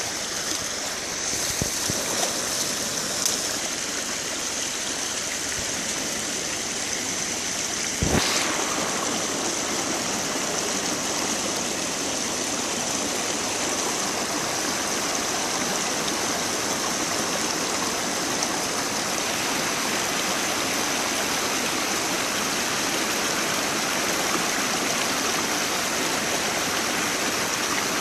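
Muddy stream water pouring over a low dam of logs and brush, a steady rushing cascade. A sharp click about eight seconds in.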